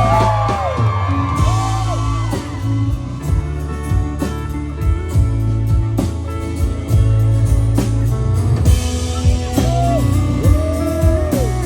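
Live country band playing an instrumental break: a lead guitar bending notes up and back down over bass guitar and drums.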